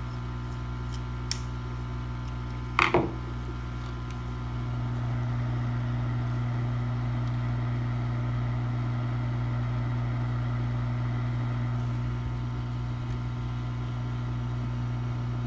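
Steady low hum of a hot air rework station's blower running, which grows a little louder about four and a half seconds in. A light click about a second in and a brief squeak-like sound near three seconds.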